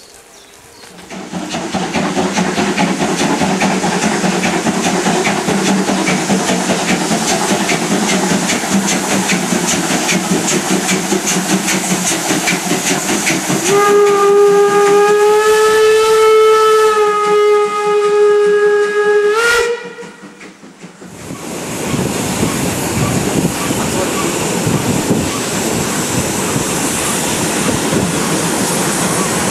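Class 50 steam locomotive 50 622 working a train with a loud, steady rush of steam and hiss. About halfway through, its steam whistle blows one long chord of several tones for about six seconds, rising slightly before it ends abruptly. After a short gap, the moving train gives a steady running noise.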